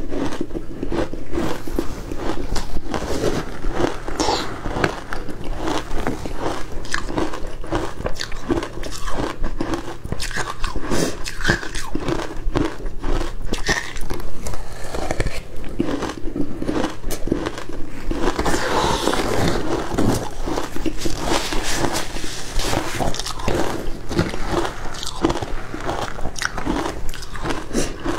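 Crushed ice dusted with matcha powder being bitten and chewed, a dense, continuous run of close-miked crunches.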